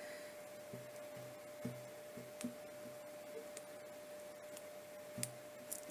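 Fingers handling small paper and card cut-outs: a few soft clicks and taps, scattered unevenly, over a faint steady hum.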